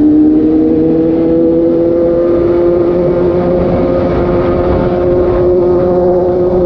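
Suzuki GSX-S750's inline-four engine running loud through an SC-Project exhaust with the dB killer removed, holding a steady engine speed that climbs slowly and evenly.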